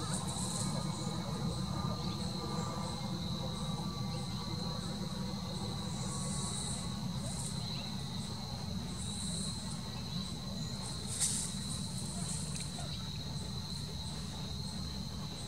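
Insect chorus: a steady high trill, with brief louder, higher bursts every few seconds, over a low steady rumble.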